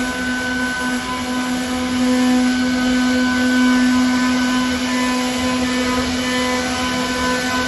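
CNC wood router's spindle motor running with a steady whine over a background hiss, swelling slightly in loudness a couple of seconds in.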